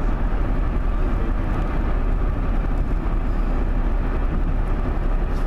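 Steady driving noise of a car moving at speed: a continuous low rumble of road and tyre noise that is strongest in the deep bass.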